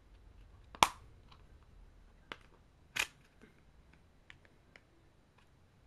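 Sharp plastic clicks as a small fingerboard case is worked open by hand: a loud click about a second in, a softer one, then another loud click near three seconds, with a few faint ticks after.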